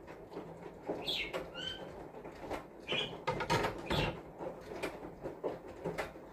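Light kitchen handling sounds: soft knocks, taps and rustles as sponge cake layers are lifted and set down on a countertop, with a few short high chirps about a second and a half in.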